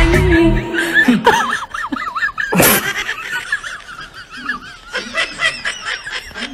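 People laughing and giggling in high, wavering voices, with one sudden loud burst of noise about two and a half seconds in. A pulsing dance-music beat is cut off at the very start.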